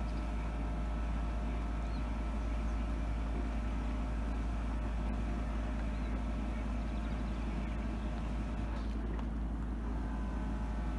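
Steady low rumble with a faint even hum of a distant engine.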